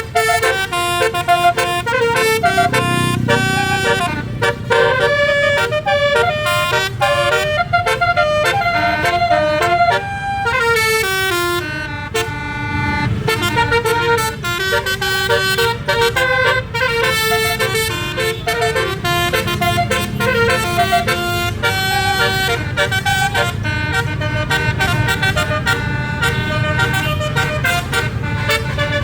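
A bus's 12-note 'basuri' telolet air horn playing melodies, a rapid string of changing notes with a few sliding runs, over the low running of the engine.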